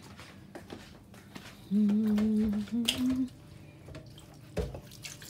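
A person's voice humming briefly on two steady held notes, the second a little higher, with a low knock near the end.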